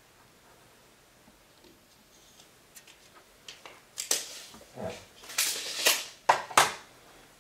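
Near quiet for about four seconds, then a run of off-camera handling noises: rustling and scraping, ending in two sharp knocks about a third of a second apart.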